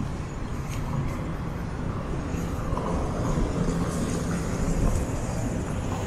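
Street ambience dominated by a steady low rumble of car traffic, swelling a little around the middle of the stretch as a car drives by.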